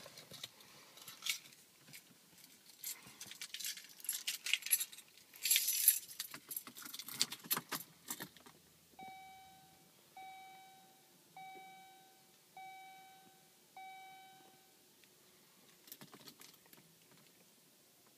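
Metallic jingling and clicks for the first half. Then the 2004 Cadillac Seville SLS's interior warning chime sounds five times, evenly spaced about a second and a quarter apart, each chime fading out.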